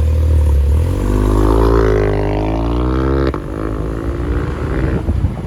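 A motor vehicle's engine running with a deep rumble, its pitch rising and then falling, and dropping off sharply about three seconds in.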